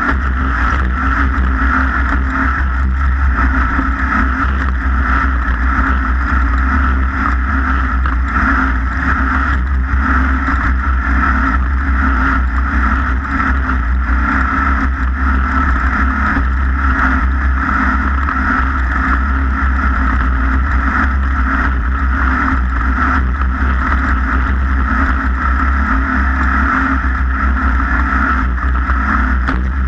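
Racing boat engine running flat out at a steady pitch, with a heavy low rumble of wind and water on the microphone. The note holds without rising or falling.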